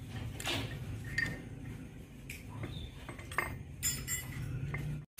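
Light metal clinks and knocks as steel parts of an excavator's hydraulic pump are handled and fitted into the pump's cast housing, several separate clinks over a low steady hum.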